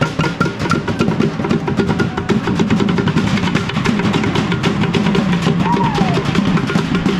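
A group of street drummers, a snare drum among them, playing fast, steady drumming with rapid rolls.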